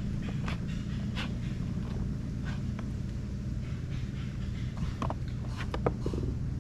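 A steady low motor drone, with a few sharp clicks and knocks over it, the loudest about six seconds in.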